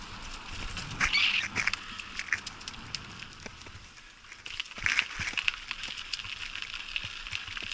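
Bicycle tyres rolling over a loose gravel path: a steady crunching hiss with many small stone clicks, and two louder rough bursts about a second in and about five seconds in.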